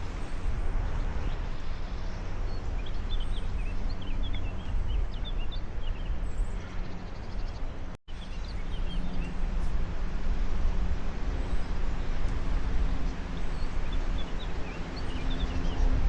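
Wind buffeting the microphone, a steady low rumble, with small birds chirping faintly now and then. The sound cuts out for an instant about eight seconds in.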